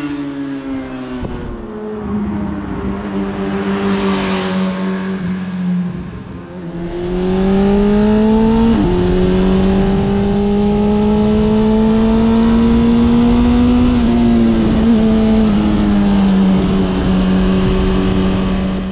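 Exhaust note of a Honda CB1000R's 998 cc inline-four through an aftermarket Leo Vince muffler: first heard from beside the road as it goes by, then from the rider's seat, the revs climbing, a quick upshift about nine seconds in, a slow climb in the next gear, then easing off and holding steady near the end.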